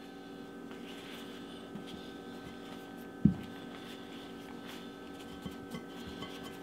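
Flour tortillas rustling softly as they are folded and pressed down over pot pie filling in a pie pan, with one dull thump about three seconds in, over a steady hum.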